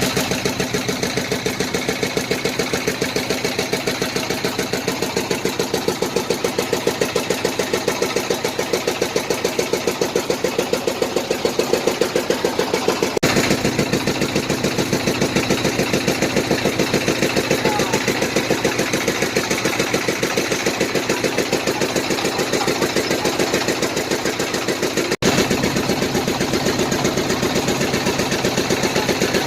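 Small fishing boat's engine running steadily under way, a fast, even chugging.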